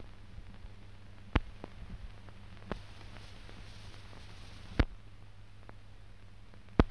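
Faint hiss and a low steady hum from an old optical film soundtrack, broken by a few sharp clicks and pops, about four in all.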